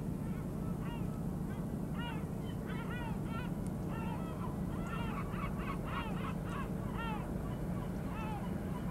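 Barbary partridges calling: a run of short, harsh, repeated notes, thickest in the middle of the stretch, over a steady low hum.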